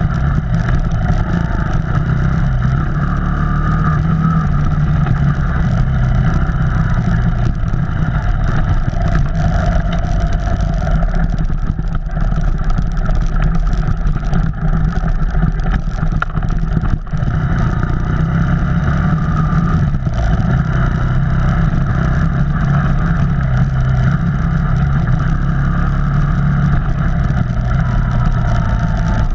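Off-road vehicle's engine running steadily under way, its pitch shifting a little as the throttle changes, with a brief dip about halfway.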